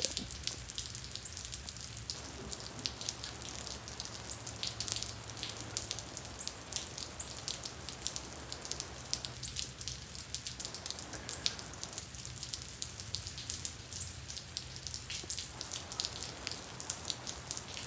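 Freezing rain falling on icy ground, a dense, uneven stream of small sharp ticks as the drops land.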